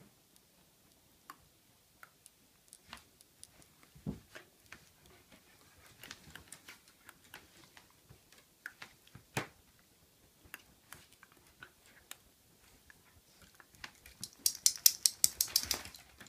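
Shiba Inu's claws tapping and clicking on a hardwood floor: scattered taps, with a couple of duller knocks, then near the end a quick run of about a dozen sharp clicks as the dog scrambles.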